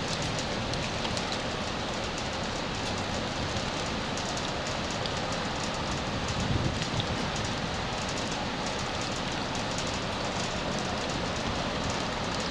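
Steady hiss of water from flooding runoff, with a brief low rumble about halfway through.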